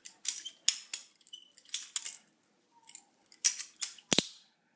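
Balisong (butterfly knife) flipped through a full twirl: its handles and blade swing and knock together in a quick, irregular run of metal clicks and clacks. The two loudest clacks come near the end.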